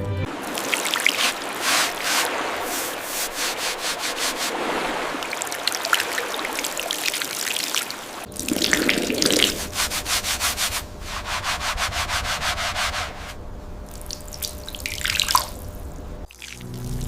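Abrasive scrubbing on a hard surface, like a stiff brush or sanding, in runs of quick back-and-forth strokes with short pauses between runs.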